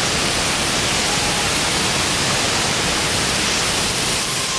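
Steady rush of pouring and splashing water from the sprays and spouts of a water park play structure.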